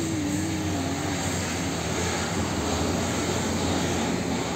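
Diesel engine of an Isuzu tractor unit hauling a container trailer, running as it drives past close by, over a steady wash of road-traffic noise. A wavering engine drone drifts a little lower in pitch in the first second or so.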